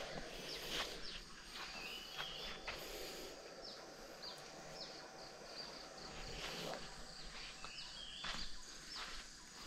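Birds chirping: many short, high, falling notes, with a brief warbled phrase twice, over a faint background hiss.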